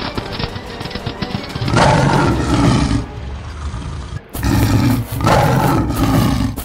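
Cartoon sound-effect roars in the style of a big cat, three times: one a bit under two seconds in, then two back to back in the second half. Background music with a beat plays under the opening.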